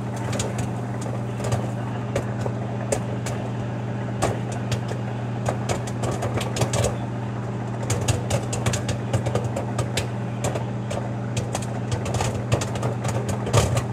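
Microwave oven running with a steady hum while a bag of microwave popcorn pops inside: scattered sharp pops that come faster from about halfway through.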